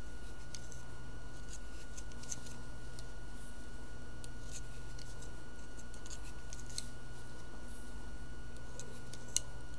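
Light, irregular clicks and scrapes of a metal loom-knitting hook against plastic pegs as loops are lifted over and knitted off, with one sharper click near the end, over a steady low hum.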